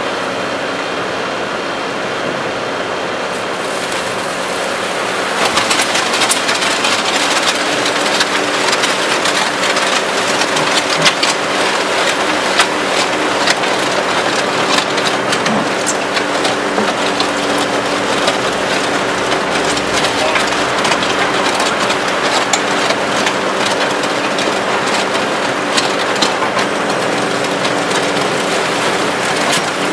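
Skid-steer loader engine running steadily while the hydraulic auger of a Danuser Mega Mixer bucket turns through a batch of bagged concrete mix. About five seconds in the sound gets louder, with many small clicks and rattles from the mix being churned.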